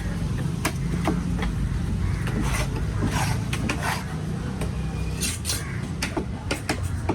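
Fish being cut with a knife on a cutting block: a run of sharp, irregular taps and chops, with some scraping, over a steady low background rumble.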